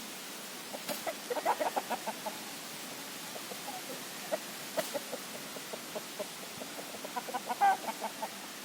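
Chickens clucking in quick runs of short calls, busiest about a second in and again near the end, with scattered clucks in between.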